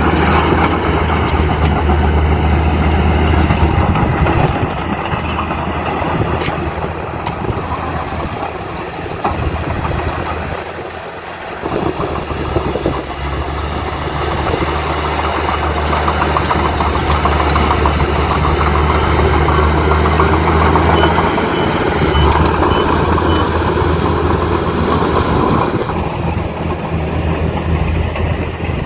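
Diesel engine of heavy earthmoving machinery running steadily. It drops off briefly about ten seconds in, then picks back up and keeps working.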